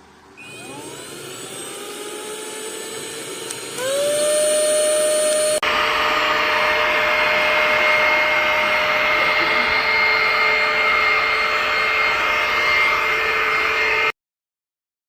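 Mini cordless handheld vacuum cleaner switched on, its motor whine rising as it spins up. About four seconds in it steps up to a higher, louder whine, and it then runs steadily with a strong rush of air before stopping abruptly near the end.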